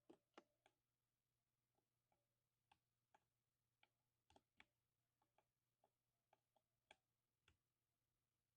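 Faint, irregular keystrokes on a 60% mechanical keyboard with silver switches: a few quick key clicks at the start, then single presses every half second or so, stopping a second before the end.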